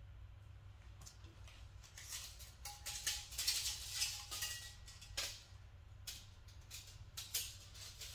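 Irregular clinks and knocks of metal parts and hand tools, busiest in the middle, with a brief faint ringing tone, over a low steady hum.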